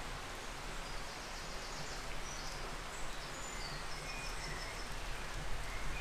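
Steady rush of running water from a small woodland stream, with faint high bird chirps now and then.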